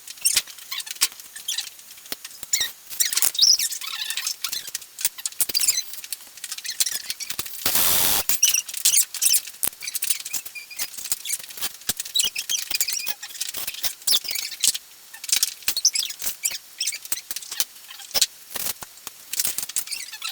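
Irregular light clicks, taps and scrapes of small hard parts being handled, with a louder rasping scrape about eight seconds in.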